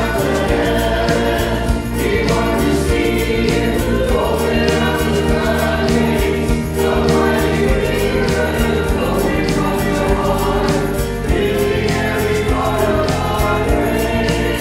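Mixed group of five men and women singing a contemporary worship chorus in harmony over a backing track made on a Yamaha PSR-SX900 arranger keyboard, with a steady beat.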